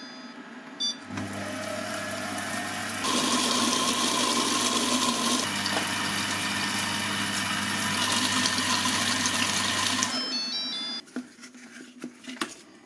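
Lidl Silvercrest Monsieur Cuisine Plus food processor's motor driving its whisk attachment to whip cream into chantilly. It spins up about a second in, runs with a steady whirring hum and stops about ten seconds in. A short run of beeps follows as it stops.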